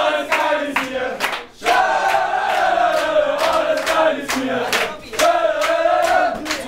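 A group of young men chanting in unison, with rhythmic hand claps, in a tiled changing room. The chant breaks off briefly about a second and a half in and again about five seconds in.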